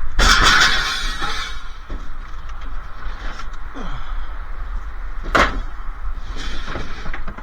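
Scrap metal scraping and clattering for about a second and a half as it is loaded onto a truck, then a single sharp bang about five seconds in, over a low rumble.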